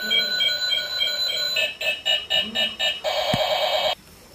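Electronic toy sound chip beeping, pulsing about four times a second, then a harsher run of beeps and a steady warbling tone that cuts off suddenly near the end.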